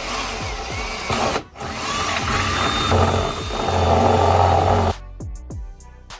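Power drill running and boring a hole through the car's underbody tray, with a short stop about one and a half seconds in. Background music takes over near the end.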